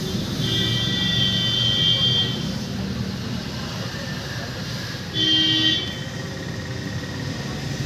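Road traffic running past, with a vehicle horn honking twice: a long honk of about two seconds starting about half a second in, and a short, loud one about five seconds in.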